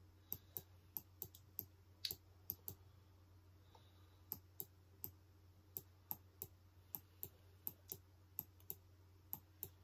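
Faint, sharp computer clicks at an uneven pace, roughly two a second with a short pause about three seconds in, from clicking on a laptop while moving around a web map. A low steady hum runs underneath.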